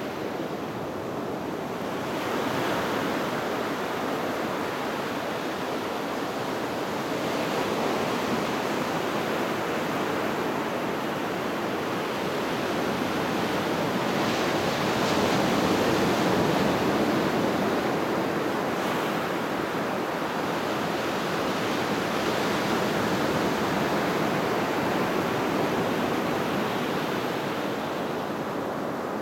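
Small surf breaking and washing up a sandy beach: a continuous rush of water that swells with each set of waves, loudest about halfway through.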